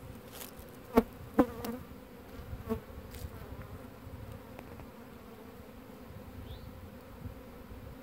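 A swarm of Russian honey bees buzzing steadily. About a second in come two sharp knocks close together, and a fainter one a little later.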